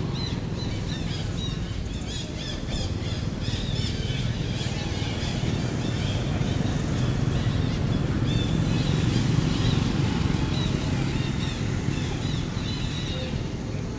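Many short, high chirps repeating over a steady low rumble.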